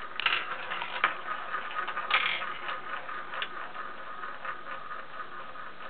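Glass marbles rolling along the wooden tracks of a marble run, a steady rolling rattle broken by sharp clicks as they strike the wood, loudest about a second and two seconds in and fading to lighter clicks toward the end.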